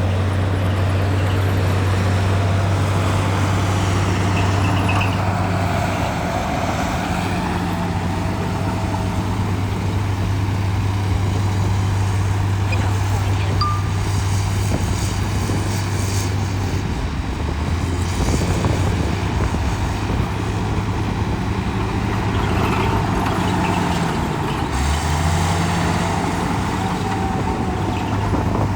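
Heavy diesel engine of earthmoving machinery running steadily, its pitch dipping briefly and coming back up near the end.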